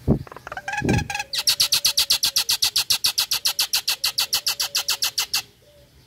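Common myna giving a fast, even rattling chatter of about nine harsh notes a second for about four seconds, which stops abruptly. It is preceded by two low thumps and a few short whistled notes.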